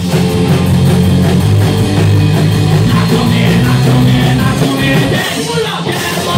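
A live rock band playing loud: electric guitar and drum kit, with a singer's voice over them.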